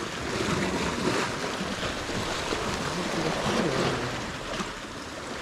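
Sea swell washing against the rocky shoreline below: an even rush of surf that eases off near the end.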